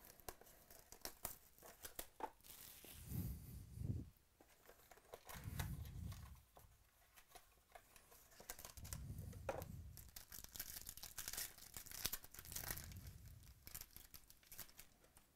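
Plastic shrink wrap being torn off a box of trading cards, then the box opened and a foil-wrapped pack of cards torn open and crinkled. The tearing and crinkling give quick crackles throughout, with several dull bumps from handling the box.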